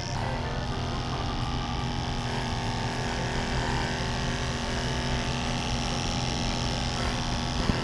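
Electric dog clipper running with a steady buzz as it is worked through a Giant Schnauzer's thick coat.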